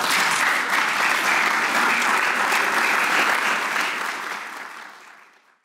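Audience applauding steadily, then fading out over the last second or so.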